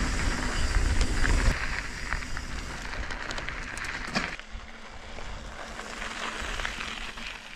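Riding noise from a helmet camera on a mountain bike: wind buffeting the microphone and tyres rolling over a loose gravel trail, with scattered clicks and rattles from the bike. The noise changes abruptly twice and cuts off suddenly at the end.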